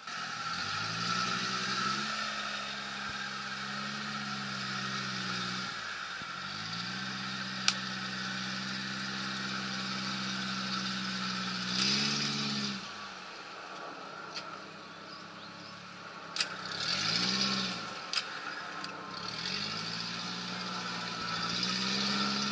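Suzuki Sidekick off-roader's engine revving in pulses in deep clay mud. It picks up and holds for several seconds, drops back, picks up again, gives a short blip and builds once more near the end, with a hiss that swells on the harder revs. A couple of sharp clicks come about eight and sixteen seconds in.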